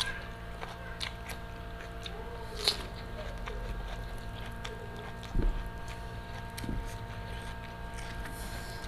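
Close-miked eating: chewing and fingers tearing grilled chicken off the bones, with scattered small clicks and a low thump about five seconds in, over a steady hum.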